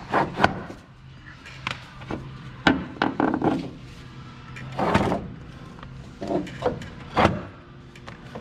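Long-handled cutters biting through an Aviat Husky's tensioned rubber bungee landing-gear cords: a string of about eight sharp snaps and clacks as the strands part, the loudest about half a second in, near three seconds and near seven seconds. A steady low hum runs underneath.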